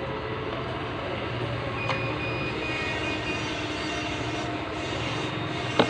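Steady low mechanical rumble with faint steady tones, broken by a sharp click about two seconds in and a louder click near the end.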